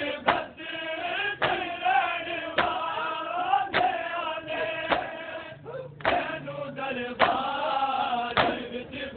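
A crowd of men chanting a nauha together in unison, with loud, sharp beats about once a second from matam, the rhythmic chest-beating of Shia mourners.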